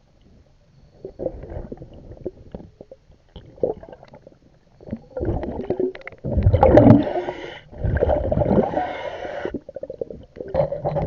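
Exhaled bubbles from a scuba diver's regulator, heard underwater: faint crackling at first, then from about five seconds in, three loud gurgling bursts of about two seconds each, one per breath.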